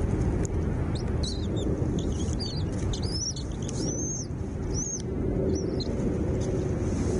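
Small bird chirping: a run of short, arched high chirps through the middle of the clip, over a loud steady low rumble.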